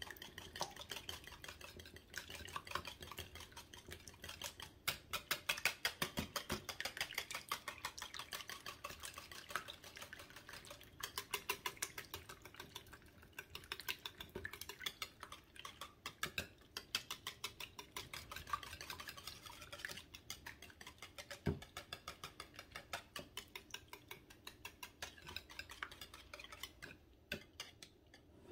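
Wire whisk beating raw eggs in a mixing bowl: fast, even strokes with the wires ticking against the bowl and a wet sloshing, stopping shortly before the end.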